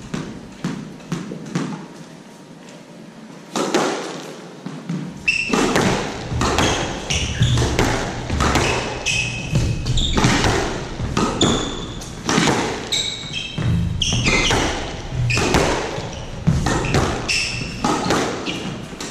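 Squash rally: the ball cracking off rackets and the walls, with shoes squeaking on the hardwood court floor. It starts about four seconds in, after a few light taps.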